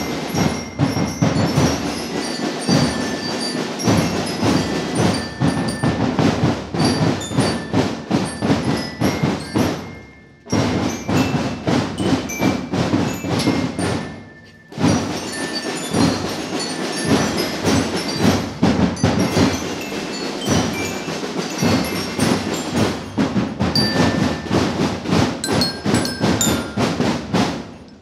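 School marching band playing: drums and cymbals keep a fast, steady beat while high bell-like notes ring over it. The sound breaks off briefly twice, about ten and fourteen seconds in.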